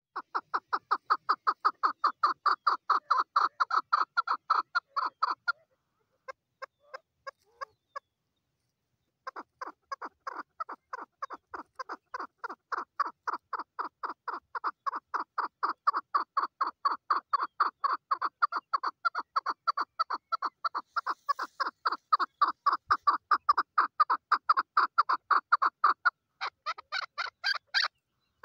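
Female chukar partridge calling: a long run of rapid clucking notes, about four a second, broken by two short pauses. Near the end the notes turn higher.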